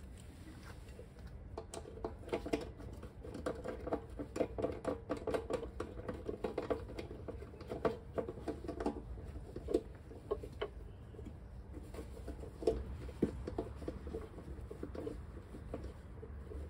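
Irregular small clicks, taps and rustles of hands working on a Yamaha YBR 125's fuel tap and hose fittings. The handling is busiest in the first half and thins out later.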